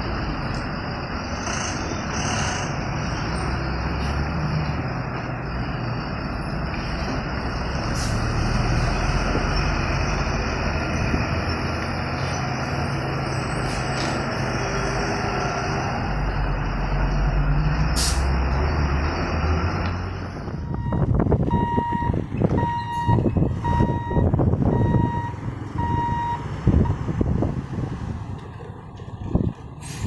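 Heavy trucks' engines running as they drive slowly across, a dense steady rumble. About two-thirds of the way through, the sound changes abruptly: a high electronic beep repeats about seven times, a little under a second apart, among scattered knocks and clatter.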